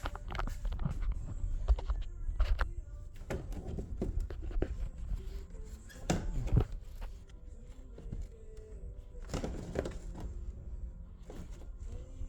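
Irregular knocks, clicks and rubbing as hands work loose and shift plastic interior trim inside a car door to get at the door latch.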